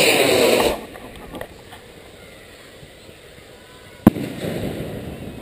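A firework launches from a rack of tubes with a loud rushing whoosh that stops under a second in. About three seconds later there is a single sharp bang as it bursts overhead, followed by a hiss.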